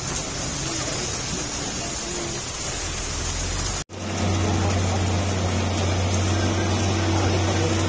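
Heavy trucks' diesel engines labouring on a wet mountain road, with a steady hiss over the engine rumble. The sound cuts out for an instant about halfway, then gives way to a strong, steady low engine drone.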